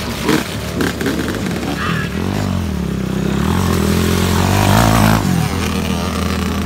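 Motocross dirt bike engine revving on a muddy track: the pitch climbs about two seconds in, runs hard and loudest to about five seconds, then the throttle drops off suddenly.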